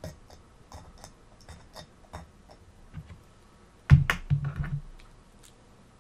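A pointed poker punching holes through aluminium foil stretched over a shisha bowl: a quick, irregular series of small crisp clicks. About four seconds in come a few louder knocks.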